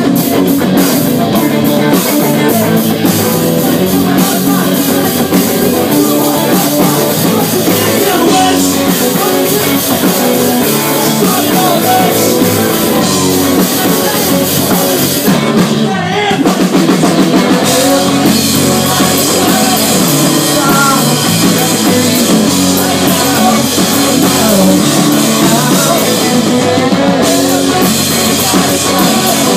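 Rock band playing loudly live: electric guitars and a drum kit.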